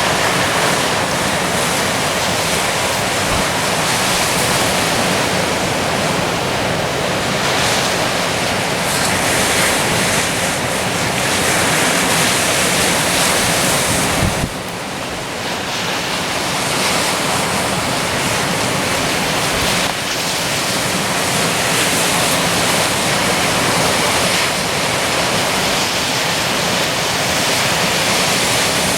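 Ocean surf washing onto the shore in a steady rush, with wind buffeting the microphone. The level dips briefly about halfway through.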